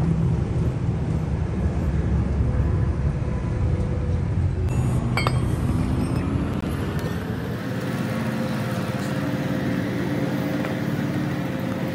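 Steady road-traffic and engine rumble, with a couple of sharp clicks about five seconds in.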